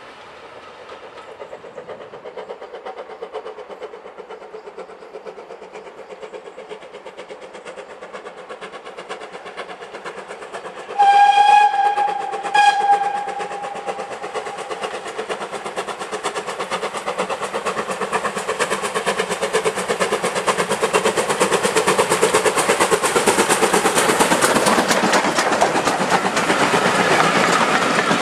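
Steam locomotive whistle sounding one longer blast and a short second one, then the steam-hauled passenger train approaching and passing close by, its wheels clattering over the rail joints and growing steadily louder.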